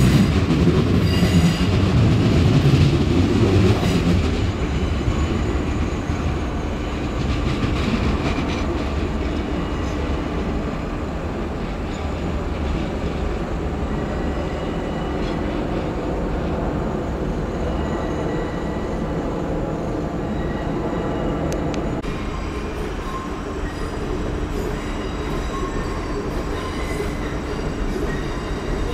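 Electric multiple-unit passenger train running at the platform, wheels on the rails. Louder for the first four seconds or so, then settling to a steadier, quieter running sound.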